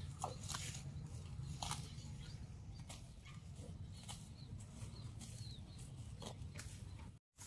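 Cow grazing: irregular crisp rips and crunches as it tears off and chews mouthfuls of grass, over a steady low rumble. The sound cuts out abruptly just before the end.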